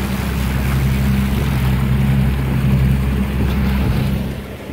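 Suzuki 300 outboard motor (a V6 four-stroke) running steadily as a low hum, under the rushing and splashing of the boat's wake. The hum drops away about four seconds in.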